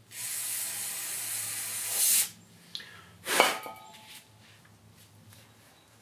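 Aerosol carburetor cleaner sprayed in a steady hiss for about two seconds onto small carburetor parts, cut off suddenly, then a second shorter blast about a second later.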